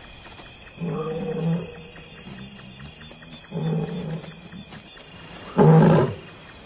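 Male lion roaring: a bout of deep, short calls about a second and a half apart, growing louder, with the loudest near the end.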